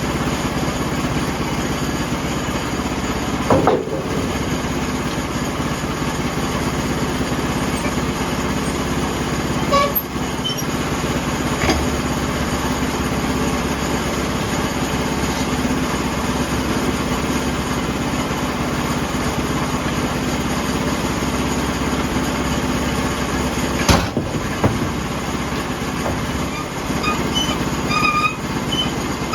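Portable sawmill running under load, its engine and blade cutting steadily through a log to square it into a cant, with a few sharp knocks.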